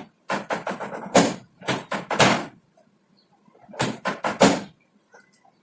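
Hands working a patient on a chiropractic treatment table: two quick runs of short, sharp rustling thumps, about six in the first two and a half seconds and four more near the middle.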